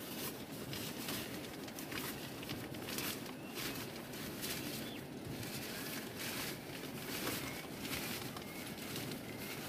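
Nylon tent fabric rustling and crinkling in many short strokes as the door panel is rolled up and tied back, with a few faint bird chirps behind.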